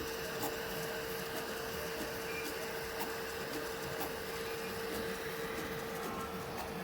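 Powered-on 3D printer humming steadily, one unchanging tone over a low background noise, with a few faint clicks.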